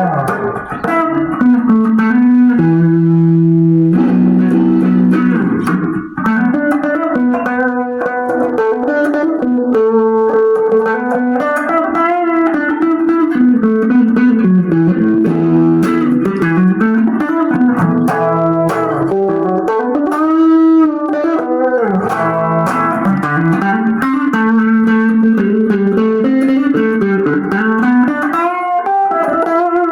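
Electric guitar played through effects pedals including a compressor: a sustained lead line of single notes with string bends and vibrato.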